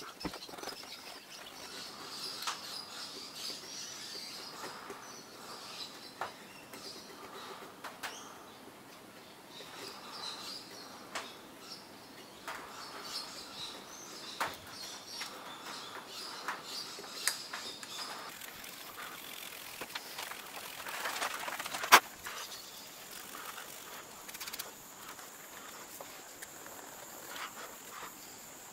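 Small hand tools scraping and picking at a carved wooden lure: faint scratching with scattered light clicks, and one sharper click about three quarters of the way through.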